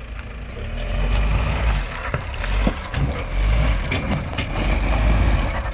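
Mahindra Thar crawling up over rocks, its engine pulling under load and growing louder about a second in, with a few sharp knocks of stones under the tyres.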